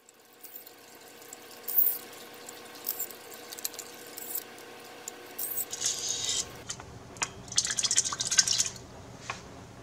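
Water squirting and dripping as a plastic transfer pipette draws distilled water from a small glass beaker and squeezes it through a small hole into an aluminum can. It comes as several short spurts with small clicks from the pipette and can.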